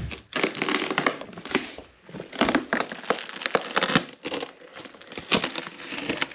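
Duct tape crinkling and tearing as it is peeled off a taped-up styrofoam ice chest, with the styrofoam crunching and scraping as the chest is pried open: a run of irregular rustles and sharp crackles.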